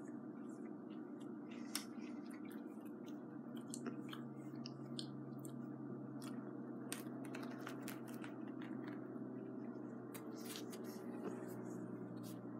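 A person chewing and biting into a chicken kebab sandwich in a baguette: scattered soft clicks and crackles of mouth noise and bread, over a steady low hum.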